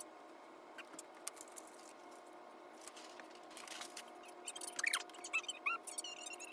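Classroom audio played back at eight times speed: voices turned into brief, high, squeaky chirps, more of them in the second half, with scattered quick ticks and a faint steady hum underneath.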